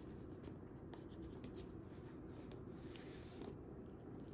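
Faint rubbing and scraping of paper and cardboard as the pull-tab seal strips are torn off a phone box, with a few light ticks.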